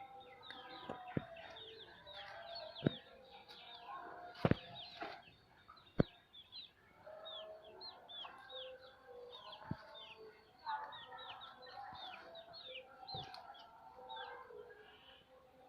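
Hens clucking while many high, quick, downward-sliding chirps from small birds or chicks go on throughout, with several sharp taps scattered through, the loudest about six seconds in.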